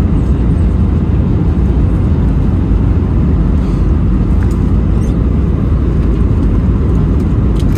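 Steady low rumble of an Airbus A319 cabin on descent: airflow over the fuselage and its CFM56 turbofan engines, heard from inside the cabin.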